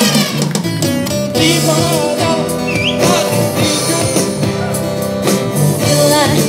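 Live busking performance of a Malay song: amplified singing through a microphone and PA speakers, over acoustic guitar and sustained bass accompaniment.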